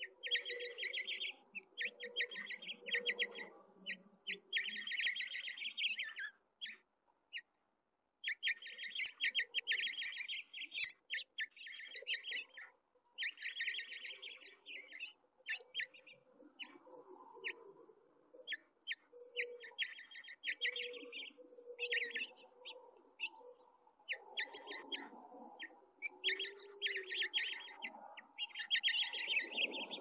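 House finch nestlings begging in the nest, a rapid high-pitched chatter of chirps in bouts of a second or two with short pauses, while the parent birds feed them.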